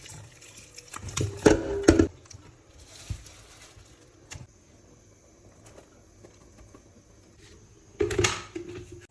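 Kitchen preparation sounds: a burst of knocks and clatter about a second in and another near the end, with quieter handling between.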